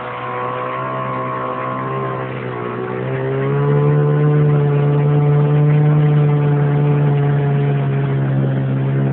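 Boat motor running steadily. About two and a half seconds in its pitch dips briefly, then it picks up and runs louder and steady.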